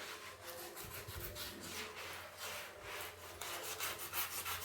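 Scrubbing a kitchen surface by hand: repeated back-and-forth rubbing strokes, about three a second, growing louder near the end.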